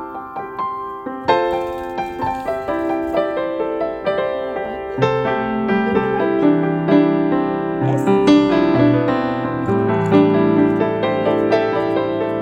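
Background piano music, gentle and melodic, with the notes fuller and lower from about five seconds in.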